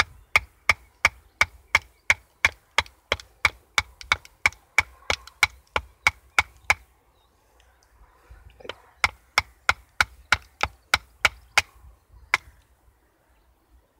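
Batoning: a wooden branch beating the steel spine of a Cudeman 148M bushcraft knife to drive it down through an upright log, sharp knocks about three a second. The blows stop for about two seconds midway, start again, and end with a single last knock.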